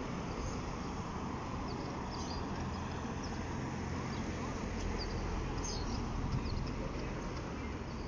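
Street ambience on a seaside promenade: a steady low rumble of street noise, with a few short, faint high chirps about two seconds in and again around six seconds.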